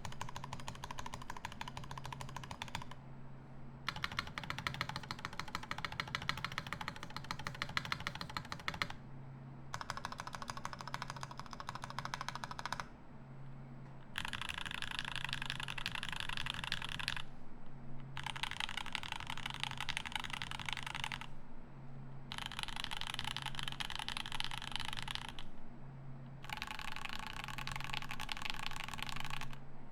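Rama M60-A mechanical keyboard with lubed Durock L7 linear switches and GMK keycaps being typed on in fast bursts of a few seconds, with brief pauses between bursts.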